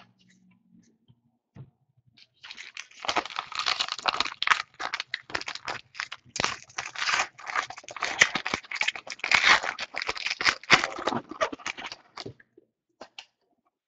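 Foil wrapper of a 2014 Donruss baseball card pack being torn open and crinkled by hand, an irregular crackling rustle that starts about two seconds in and stops shortly before the end.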